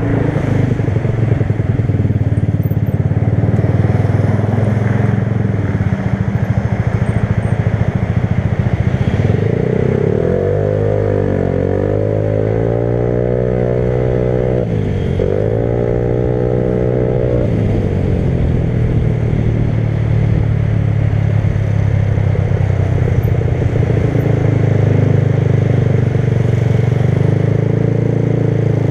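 Motorcycle engine running under way. About ten seconds in it revs up with the pitch rising, drops once at a gear change, and climbs again before settling back to a steady cruise.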